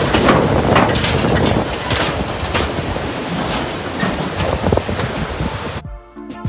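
Car crossing a steel truss bridge with the window open: loud wind and road noise, rushing river water and repeated metallic clatter from the bridge deck. Near the end it cuts abruptly to a short stretch of steady tones.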